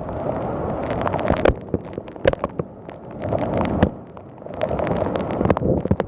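Thunderstorm wind gusting against the microphone in waves, with heavy rain and a scatter of sharp cracks and pops over it.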